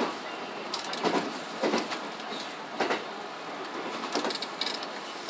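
A JR West 227 series electric train's wheels running over the track, heard from inside the train: a steady running noise with a series of sharp, irregularly spaced clacks as the wheels cross rail joints and turnouts.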